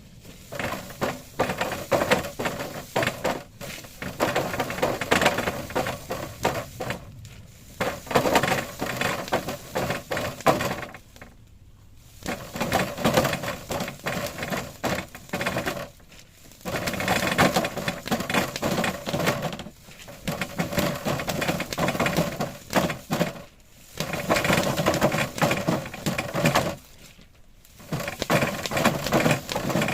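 Greenhouse plastic film being handled and pulled, crinkling and crackling in bursts of a few seconds with short pauses between them.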